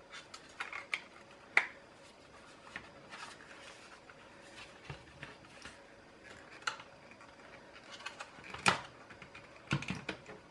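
Hard plastic housing of an automatic soap dispenser being handled and turned over, giving scattered light clicks and knocks, with a sharper knock about a second and a half in, another near nine seconds, and a quick run of clicks just before the end.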